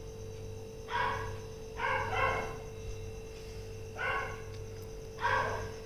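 A dog barking about five times, in short calls spaced irregularly, some in quick pairs, over a steady low hum.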